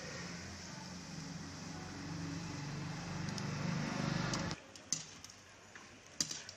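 Besan pakodi sizzling steadily in hot oil in a steel kadhai, over a low rumble. The sound cuts off abruptly about four and a half seconds in. After that it is quieter, with two sharp clinks of the metal skimming spoon against the pan.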